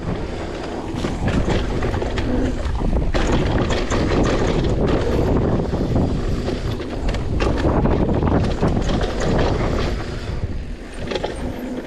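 Mountain bike riding fast down a dry dirt singletrack: a steady rushing of tyres on dirt and wind, with scattered clicks and rattles from the bike.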